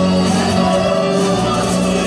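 Loud dance music with singing, with a long held note through most of it, accompanying a Romani girls' dance group.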